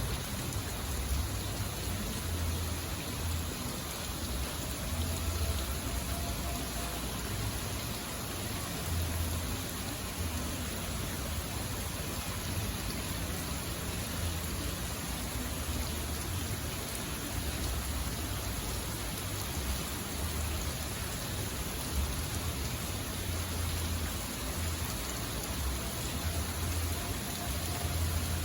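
Steady rain hiss with wind gusting on the microphone. Over it, a tornado warning siren sounding the attack signal is only faintly heard, rising and falling in pitch twice, once a few seconds in and again near the end.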